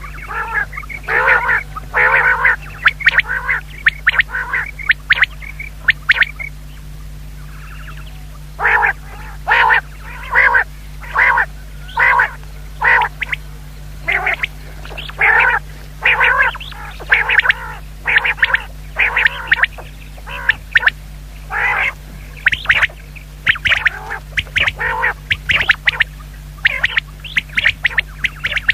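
Female common quail calling: short calls repeated in quick runs, with a pause of about two seconds a little after six seconds in.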